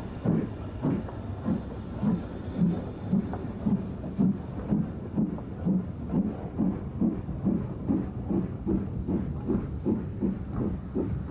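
BR Standard Class 4 2-6-0 steam locomotive No. 76017 working a train, its two-cylinder exhaust beating about twice a second. The beats quicken slightly as it gets away.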